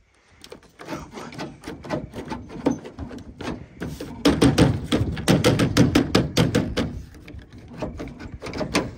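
A rapid series of sharp thumps or knocks, about four to five a second, starting about a second in and loudest in the middle.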